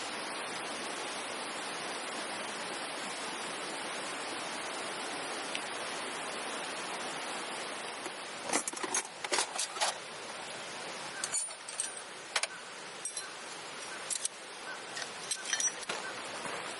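Light metallic clinking and rattling, in a quick cluster about halfway in and then scattered single clinks, as metal camping gear is handled, over a steady rushing noise.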